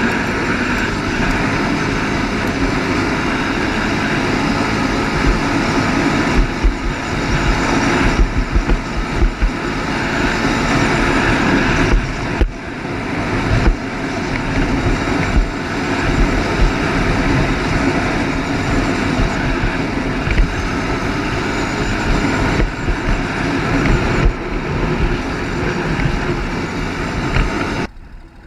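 ATV engine running at speed, ridden across sand, easing off briefly a few times. Near the end the sound drops off abruptly to a much quieter level.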